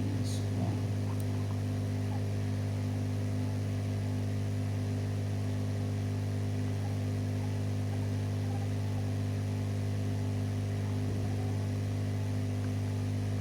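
Steady electrical mains hum, a low buzz with evenly spaced overtones that does not change, with a faint click or two right at the start.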